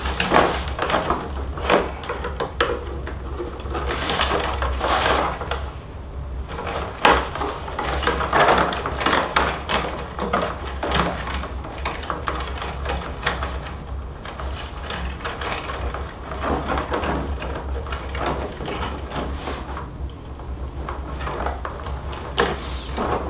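Stiff rawhide lacing on the back of a frame drum being picked loose with an awl and pulled through: irregular clicks and rubbing sounds, over a steady low hum.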